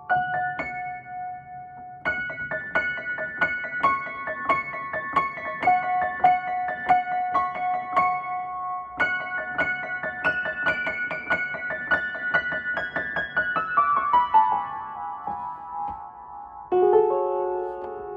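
Keyboard instrument played in quick, evenly struck notes. Near the end a run steps downward, followed by a lower held chord.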